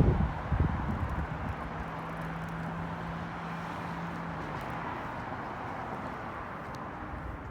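Steady outdoor background noise with a low droning hum that drops slightly in pitch about four and a half seconds in and then fades, with a burst of low rumble at the very start.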